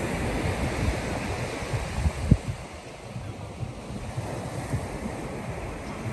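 Ocean surf washing onto a sandy beach, with wind buffeting the microphone and one sharp wind thump a little over two seconds in.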